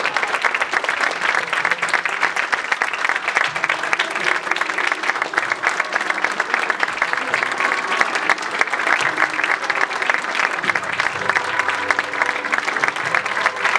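Steady applause from a theatre audience and the cast at a curtain call, many hands clapping together throughout.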